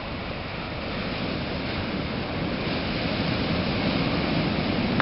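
Ocean surf washing onto the beach, a steady rushing noise that swells a little over the first couple of seconds, with some wind on the microphone.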